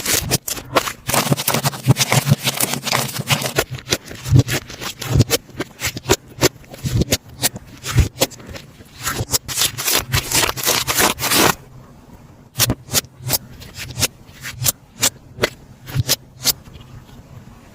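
Slime being squished and pressed by hand, a dense run of sticky clicks and crackles that thins to sparser single clicks about eleven seconds in.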